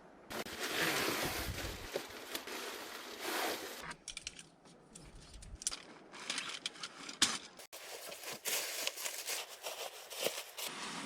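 Rustling and crinkling handling noise in irregular bursts, with a few sharp clicks.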